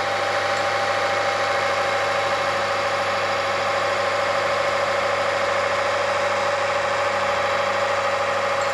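Motor-driven ring-on-block friction tester running steadily, an even hum with a constant whine, its ring turning in oil treated with a tungsten disulfide nano-additive. The ring keeps rotating under low friction as the load is raised, a sign that the oil film is holding without seizure.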